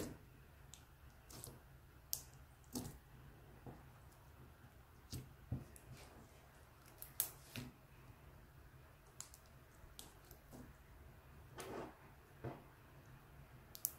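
Clear glitter slime made from clear glue being pressed, poked and stretched by hand. It gives faint, irregular squishy clicks and pops as air pockets are squeezed.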